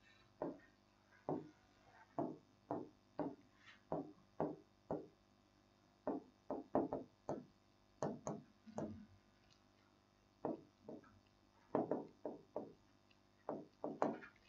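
Chalk tapping and scraping on a blackboard as words are written by hand: short strokes, about two or three a second, with brief pauses between words.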